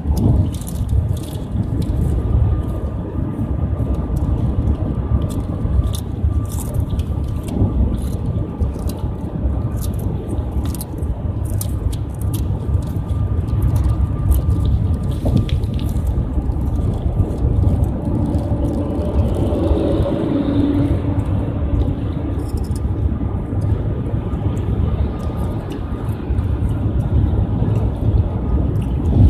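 Steady low rumble of road and engine noise inside a moving car's cabin, with a faint steady whine running through it.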